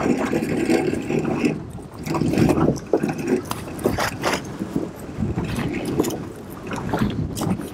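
Anchor rope being paid out by hand over a small boat's bow cleat: irregular rubbing and knocking of the line, with wind buffeting the microphone.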